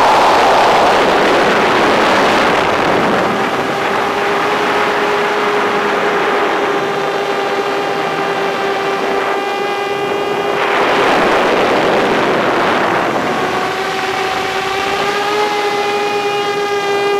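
FPV drone's motors whining at a held pitch with several overtones, over a rushing noise that fades in the first few seconds and swells again briefly about ten seconds in.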